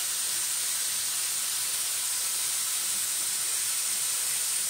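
A steady, even hiss that does not change or break.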